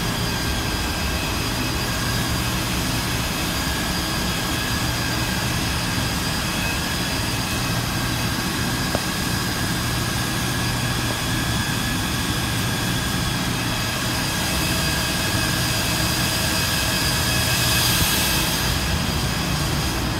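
Rack-mounted servers' cooling fans and power supplies running: a steady whir with several high whining tones. The hiss grows louder near the end.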